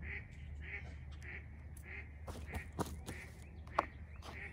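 A bird calling over and over, one short call about every half-second, with a few sharp plastic clicks from the worm tub being handled; the loudest click comes near the end.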